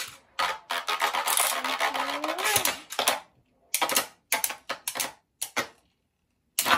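Two Beyblade Burst spinning tops ripped from their launchers into a plastic stadium, clattering fast against each other and the bowl. They then clack apart in separate hits, and a loud crack near the end comes as both tops burst apart at once.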